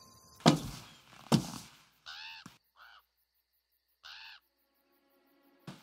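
Two heavy thumps about a second apart, then a crow cawing three times, with a short sharp click near the end.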